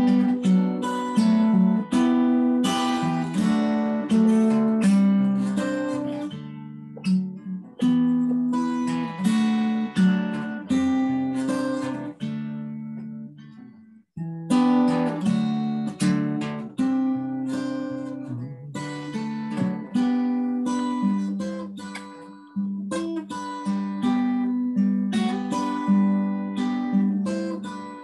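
Solo guitar playing a slow piece of picked chords. About halfway through the notes ring out and fade almost to silence, then the playing starts again.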